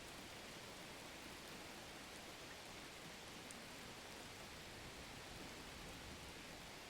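Faint, steady hiss with no pitch or rhythm, with a few tiny ticks scattered through it, like distant light rain or a plain noise floor.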